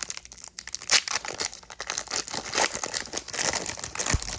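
Plastic wrapper of a hockey trading-card pack crinkling and tearing as it is opened by hand, a dense run of irregular crackles with a sharp rip about a second in.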